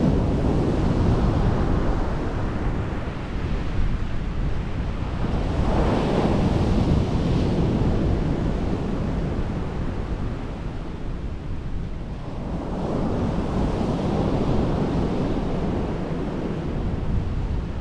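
Sea surf breaking on the shore, swelling and falling back three times, with wind rumbling on the microphone.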